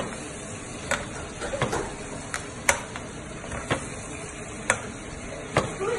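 Steak frying in a pan of melted butter, sizzling steadily as it is basted with a metal spoon. The spoon clinks against the pan every second or so.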